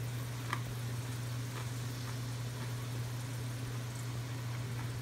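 A few faint, scattered crunches of someone chewing a crispy pan-fried shad piece with its bone in, over a steady low hum.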